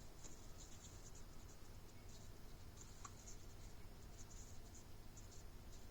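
Near silence: room tone with a faint low hum and scattered soft scratchy ticks.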